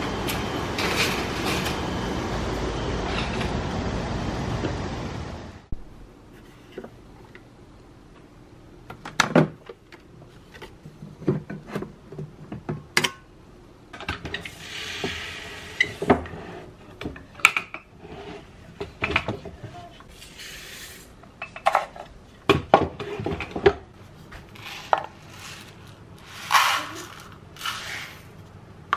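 A loud steady rushing noise that cuts off suddenly about six seconds in, then scattered clinks and knocks of dishes and cutlery being handled.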